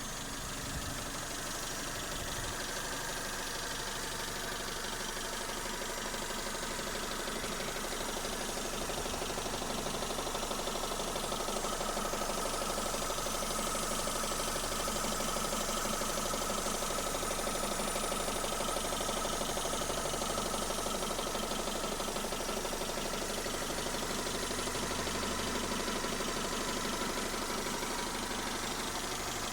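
Mazda Familia engine idling with a rapid, steady knocking that appeared after the timing belt was replaced. It runs a little louder through the middle of the stretch.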